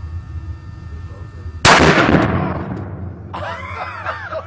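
A single rifle shot, a sudden loud crack about one and a half seconds in, echoing off the walls of the indoor range as it dies away over about a second. A voice follows near the end.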